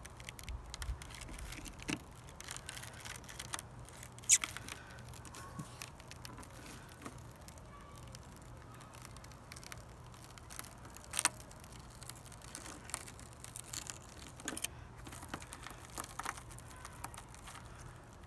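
A razor-blade scraper scratching quietly at old window adhesive on a car's quarter-window frame. Shattered glass fragments crackle as they come loose, with a few sharp clicks, the clearest about 4, 11 and 15 seconds in.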